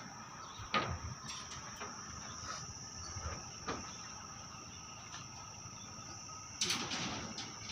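Steady high-pitched drone of insects, such as crickets or cicadas, with a few short knocks about a second in and a cluster of knocks near the end.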